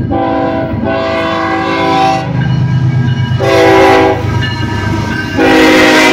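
Horn of a Kansas City Southern de México ES44AC diesel locomotive leading a freight train, sounded in four blasts, the later ones the loudest and the last starting near the end. Under it runs the low rumble of the passing diesel locomotives.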